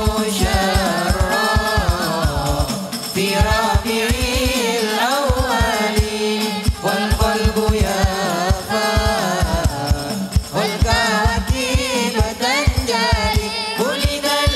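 Hadrah ensemble performing a sholawat: male voices sing long, ornamented melodic lines over quick, dense frame-drum (rebana) beats with heavy bass, amplified through a sound system.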